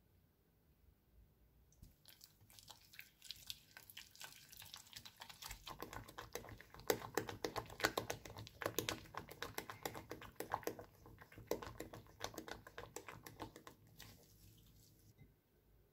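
Silicone spatula stirring and beating a thick egg-yolk and butter batter in a glass bowl: rapid, irregular wet clicks and scrapes against the glass. They build up after the first couple of seconds and stop shortly before the end.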